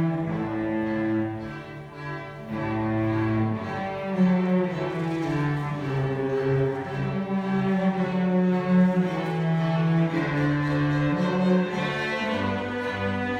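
Cellos and a double bass bowing a slow piece together, long held notes changing every second or two.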